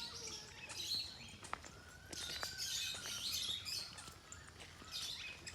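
Many small birds chirping and calling over one another in a busy morning chorus, with short high notes scattered throughout.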